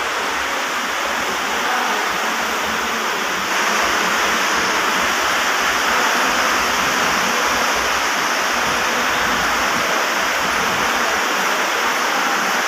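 Metro train running, a steady rushing rumble of wheels on rail that gets a little louder about three and a half seconds in.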